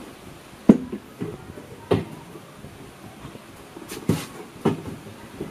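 Plastic body panels and seat of a Honda Airblade 150 scooter knocking and clunking as they are worked loose by hand: a handful of separate sharp knocks, the first the loudest.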